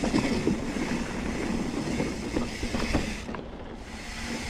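Mountain bike rolling fast over a rough dirt trail, picked up by a camera mounted on the bike or rider: a steady rumble of tyres and air rush with frequent small rattles and clicks from the bike.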